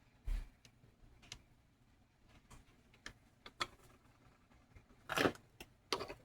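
Scattered light clicks and knocks of small objects being handled, with a louder scraping rustle about five seconds in and another sharp click just after.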